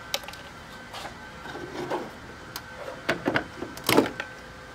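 Plastic trim on a car's trunk lid being pried off with a tool: scattered clicks and scrapes, then a quick run of louder snaps near the end.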